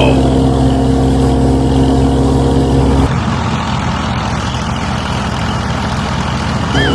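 A motor running steadily with an even hum. About three seconds in it changes abruptly to a rougher, noisier run.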